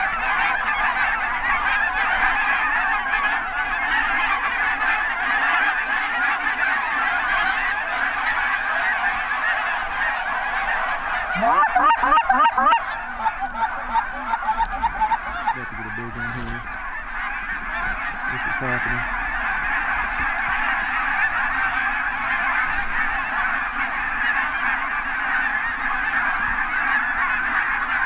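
A large flock of geese honking and calling all together in a dense, steady chatter. About eleven seconds in, a louder run of rapid rising calls stands out close by.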